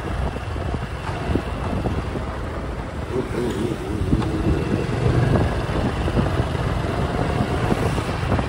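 Small motorcycle engine running at low speed, heard from the rider's seat, with road and wind rumble.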